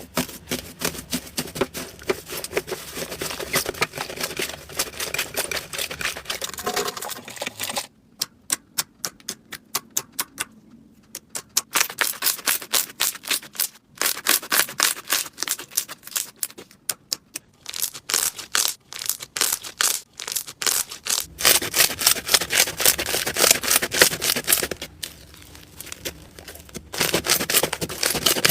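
Slime being squeezed and poked by hand, popping and crackling in quick runs of sharp clicks. In one stretch the clicks come slower and more spaced out.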